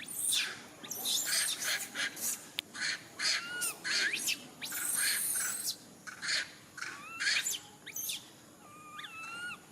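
Baby monkey crying out in a rapid series of short, high-pitched squeals and screeches, some with whistly rising and falling pitch: the distress cries of an infant separated from its mother.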